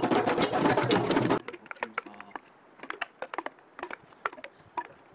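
Group hand drumming on djembes, many hands beating fast and dense, which cuts off suddenly about a second and a half in. After that come scattered sharp clicks and short chirping calls, like small birds in woodland.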